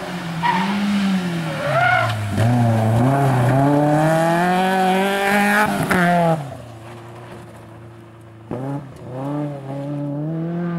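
BMW 318ti rally car's four-cylinder engine revving hard on a gravel stage, pitch climbing and dropping with each gear change. About six seconds in the engine note drops away and goes quiet, and near the end it climbs and falls again.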